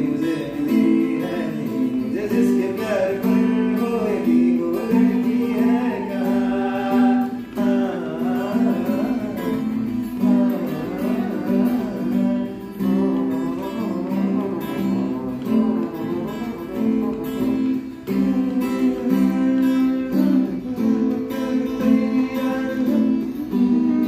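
Acoustic guitar strummed in steady chords, with a voice singing along through most of it.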